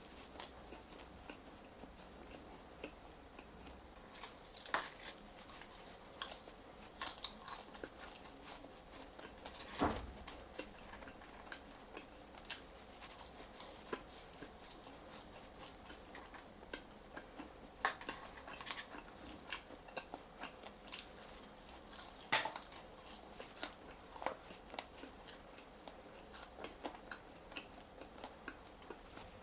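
Close-up chewing and biting of French fries: irregular soft crunches and wet mouth clicks. There is a louder thump about ten seconds in.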